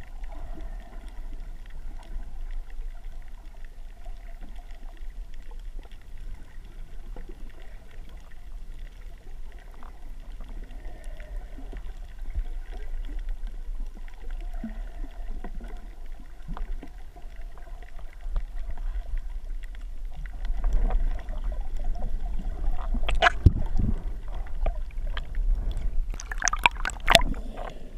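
Underwater sound picked up by a submerged camera: a steady, muffled low rumble of moving water with faint gurgles. About two-thirds of the way through it grows louder, with sharp splashes and clicks as the camera nears and breaks the surface.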